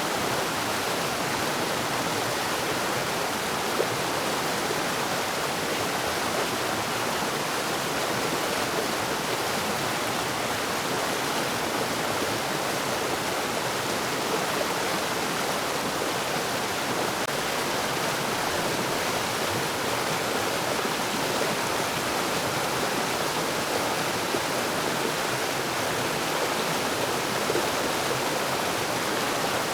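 Forest waterfall: water falling and rushing in a steady, even hiss with no let-up.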